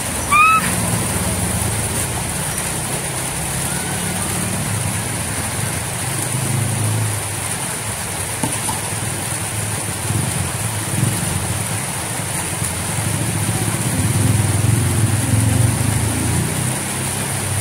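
A motor vehicle engine idling, a low rumble that swells and fades, over a steady high hiss.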